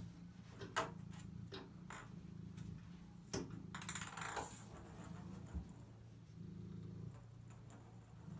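A ping pong ball clicking and bouncing against the hard bathtub as a cat bats it about: a few sharp taps, the loudest about a second in, with a brief scuffling scrape near the middle.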